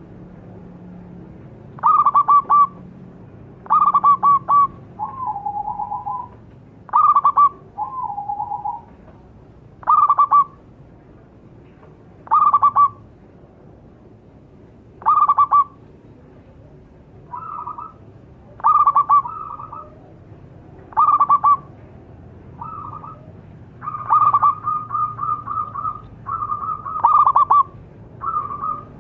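Zebra dove (perkutut) cooing: short phrases of quick staccato coos repeated about every two seconds, with a longer run of rapid notes near the end.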